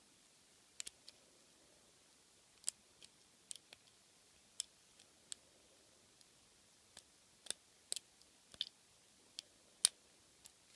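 Small metallic clicks and ticks at irregular intervals from a pick and tension wrench working a pin-tumbler lock, with the loudest click near the end.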